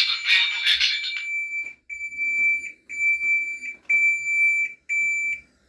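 Fire alarm sounders on a GENT Vigilon system going off together in a dense, loud mix. About a second in, the mix cuts out, leaving one steady high-pitched tone that pulses on and off about once a second, four times, before stopping.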